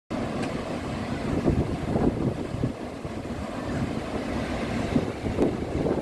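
Pacific Ocean surf breaking and washing ashore, a steady rumbling rush, with wind gusting against the microphone.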